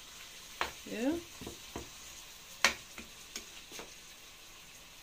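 Chicken livers, gizzards and onions sizzling in hot ghee in a metal frying pan, with a steady hiss. A slotted metal spoon stirs and knocks against the pan about six times, the sharpest knock a little past halfway.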